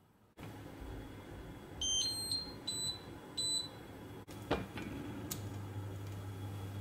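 Induction hob touch controls beeping: four short electronic beeps, the first stepping up in pitch, as the hob is switched on and set to heat the pan. A knock follows, then a low steady hum from the hob.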